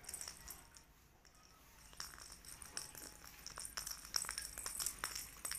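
Light, scattered clicks and taps of a wand toy's plastic ball knocking on a tiled floor as a kitten bats at it, with a short lull about a second in.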